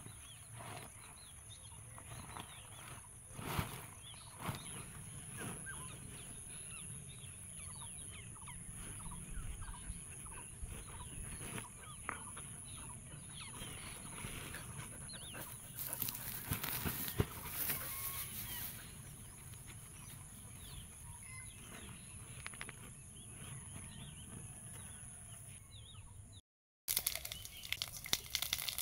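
Chickens clucking in the background over a steady high-pitched hum, with the rustle and crackle of leafy vines being picked and a woven plastic sack being handled.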